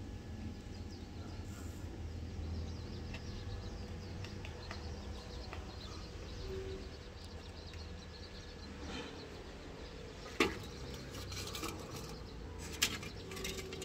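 A few sharp clicks and knocks, the loudest about two-thirds of the way in, as hen's eggs knock against a perforated aluminium basin, over a steady low outdoor rumble.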